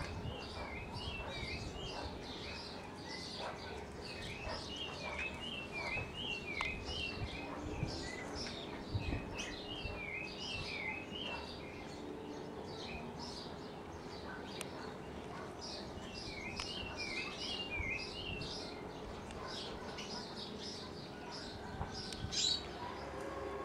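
Saffron finch singing: several short bursts of quick, repeated chirps with pauses between them, over a faint steady hum.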